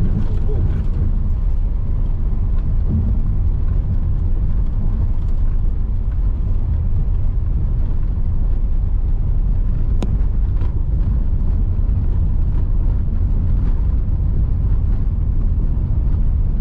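Car driving a steep stretch of road: a steady low rumble of engine and road noise, with one sharp click about ten seconds in.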